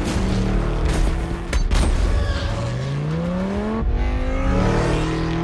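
Sports car engines revving and speeding past in a film car-chase sound mix, with a few sharp bangs in the first two seconds and then two rising engine sweeps.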